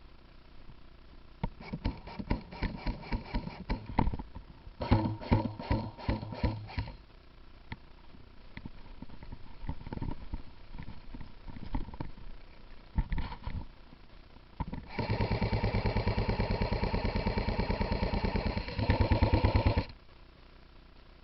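Airsoft electric gun (AEG) firing: a string of single shots, then a few short bursts, then one long full-auto burst of about five seconds near the end, the gearbox motor buzzing under the rapid clicking.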